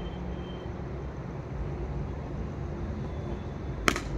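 Steady low outdoor background rumble, with one sharp click near the end.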